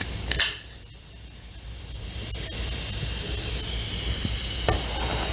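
Lexivon LX-770 butane soldering iron: a short sharp snap about half a second in, then from about two seconds a steady high hiss of butane gas burning to heat the tip.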